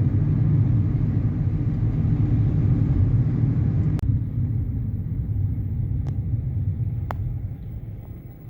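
Car on the move: a steady low rumble of engine and road noise. A sharp click comes about four seconds in, after which the hiss above the rumble drops away, and the sound fades gradually near the end.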